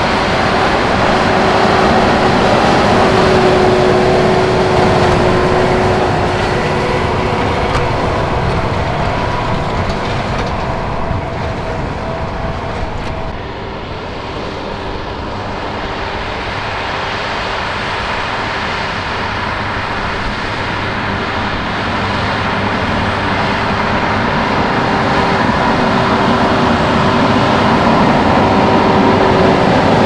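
John Deere 7R.330 tractor's six-cylinder diesel engine running under load as it pulls a Krone HDP2 big square baler, with the baler's machinery adding to the noise and a steady whine. The sound dips about halfway through, then grows louder as the rig comes closer.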